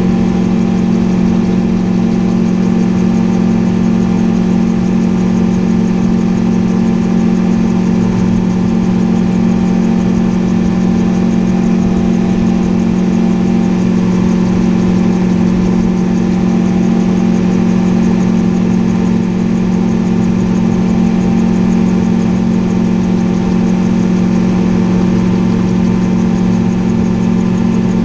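Gyroplane engine running steadily in level flight, a constant drone with no change in pitch, heard from the cockpit.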